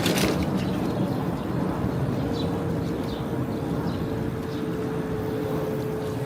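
Steady street traffic rumble, with a steady hum joining in about two seconds in.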